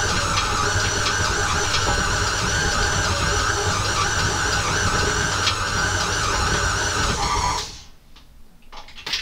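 KitchenAid stand mixer running steadily, its paddle beating stiff cookie dough that is coming together into a ball. It is switched off about seven and a half seconds in, and a few light clicks of handling follow.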